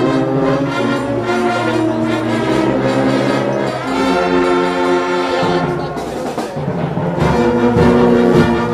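Brass marching band (fanfarra) playing held, full chords. From about seven seconds in, low drum strokes beat out a rhythm under the brass.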